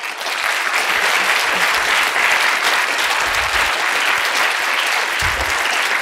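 Audience applauding: dense, steady clapping from a seated crowd.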